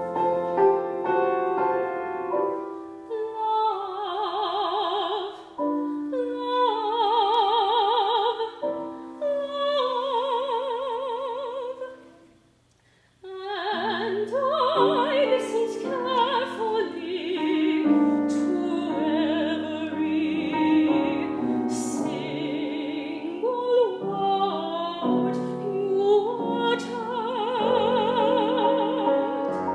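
Classical soprano singing with wide vibrato over piano accompaniment, in a new art song. The music drops to a brief near silence about twelve seconds in, then voice and piano resume.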